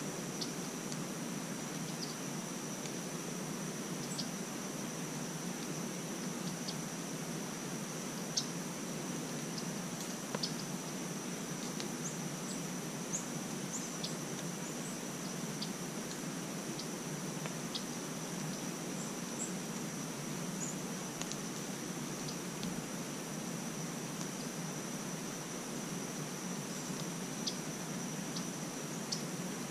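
Steady high-pitched insect drone, with scattered faint short ticks and chirps over a low, even background hiss.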